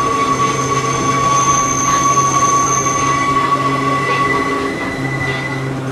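Running sound inside a Hakone Tozan Railway Moha 1 type car, Moha 107, with nose-suspended traction motors. High-pitched steel wheels squeal steadily, as on one of the line's sharp curves, over a low steady drone. The squeal's main tone fades near the end.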